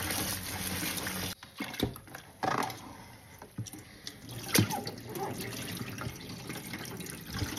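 Kitchen tap running into a plastic basin of bitter gourd leaves, stopping about a second in. Then a hand sloshes and swishes the leaves in the water, with a few sharp splashes.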